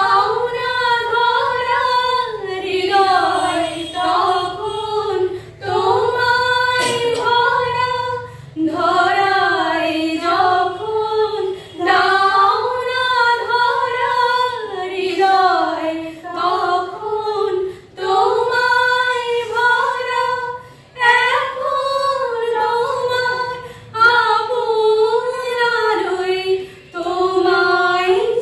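A small group of women singing a song together, without instruments, in phrases of a few seconds with short pauses for breath between them.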